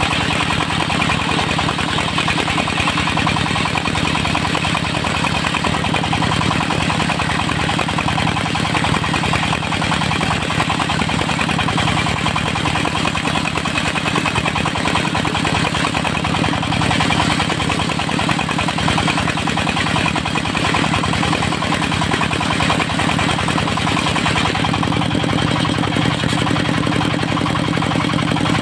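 The engine powering a portable circular sawmill runs steadily; its low note shifts slightly near the end.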